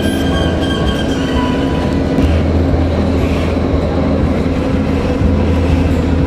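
Doha Metro train running at speed, heard from inside the carriage: a steady rumble of wheels and running gear, with a thin high whine in the first second or so.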